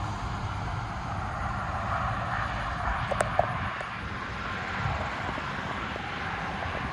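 Steady distant engine drone with a low rumble, and a couple of faint clicks about three seconds in.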